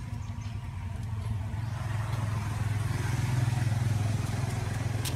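A motor vehicle's engine running with a steady low drone, growing louder over the first few seconds as it comes closer and easing slightly near the end.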